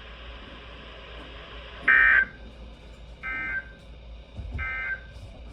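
Emergency Alert System end-of-message data bursts: three short two-tone digital squawks about a second apart, the first the loudest. This is the SAME "NNNN" code that closes a NOAA Weather Radio alert.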